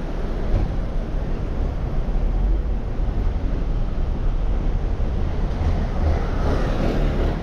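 Wind buffeting a GoPro's microphone while riding a bicycle down a city street: a steady low rumble, with street traffic noise under it and a louder stretch near the end.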